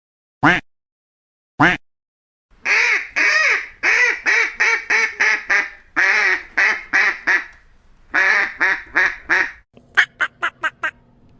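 Duck quacking: two single quacks, then several runs of loud, hoarse quacks in quick succession. Near the end comes a faster series of short, clipped quacks over a steady low hum.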